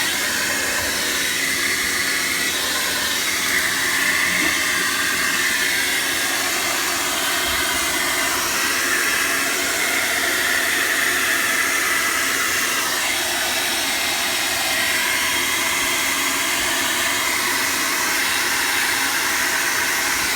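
Hair dryer running steadily on high, blowing hot air to melt built-up ice off a refrigerator's frozen evaporator coils.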